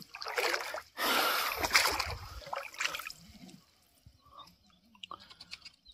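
Shallow water splashing and sloshing as a person wades through it, two surges in the first three seconds, then a few faint drips onto the water surface.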